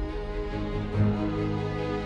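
Background music: sustained held notes, with a deeper note sounding about a second in.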